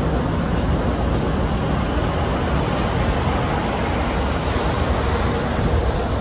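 Freight train rolling past: boxcars and covered hoppers giving a steady low rumble of steel wheels on rail.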